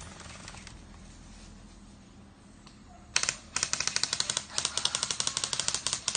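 Airsoft BB guns firing on full auto: faint rapid clicking at the start, then about three seconds in a short burst followed by two longer rapid-fire bursts of about a second each, nearly back to back.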